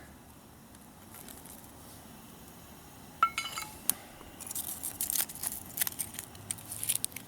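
One ringing metal clink about three seconds in, then a run of quick, sharp ticks and crackles from a freshly lit fire in a small wood-burning camp stove.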